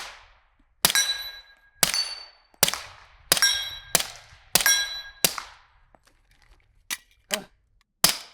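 Suppressed FNX-45 .45 pistol firing subsonic rounds in a steady string of about seven shots, each answered by the ringing clang of a steel target. A short pause with a couple of faint clicks comes before one last shot near the end.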